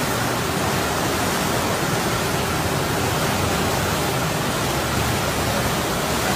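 Fast, muddy floodwater of a swollen river rushing past in a steady, unbroken noise.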